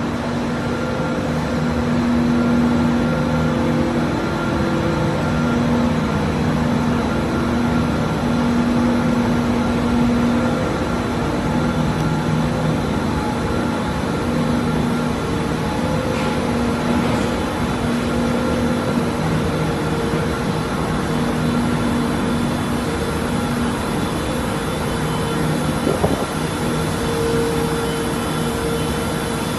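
Continuous din of a non-woven fabric production line, machinery running steadily with several humming tones that swell and fade. A brief knock near the end.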